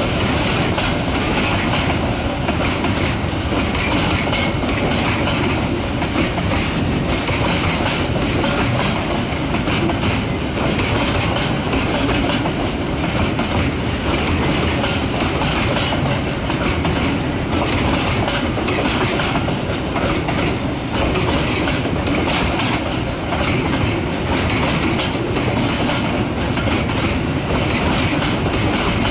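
Wagons of a KiwiRail freight train rolling past at close range: a steady rumble of steel wheels, with repeated clacks as the wheels cross the rail joints.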